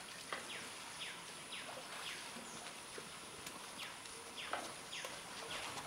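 Short falling chirps repeat about twice a second from a calling animal, over a steady high-pitched hiss, with a few sharp knocks in between.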